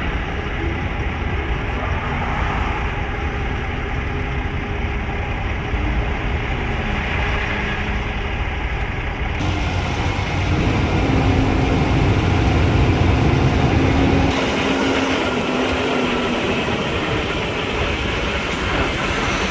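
Semi-truck's diesel engine and road noise heard inside the cab while driving on a highway: a steady low rumble. It gets louder about halfway through as the engine note comes up for a few seconds, then settles again.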